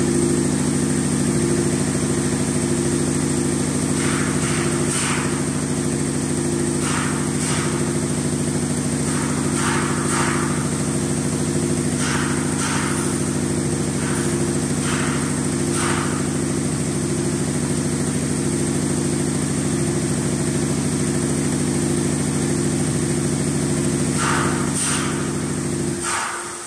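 Richpeace four-head CNC punching and perforation machine running: a steady machine drone with a regular pulse from the punching heads, and short hisses every second or so in pairs and clusters. The drone stops near the end.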